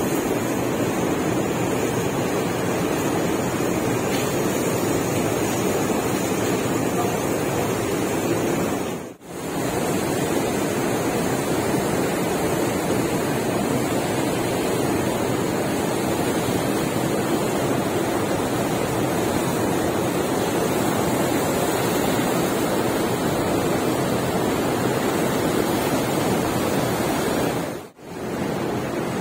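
Rushing water of a ship's churning wake mixed with wind on the microphone: a steady noise that drops out briefly twice.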